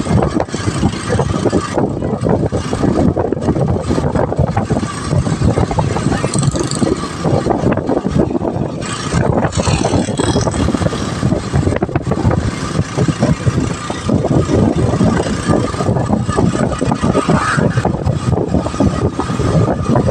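Motorcycle tricycle riding along a road: its engine runs steadily under loud, continuous wind and road noise buffeting the microphone.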